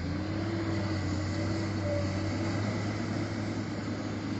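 Excavator's diesel engine running hard at high revs, the pitch rising at the start and then holding steady, as the machine works to climb out of swamp mud where it has sunk.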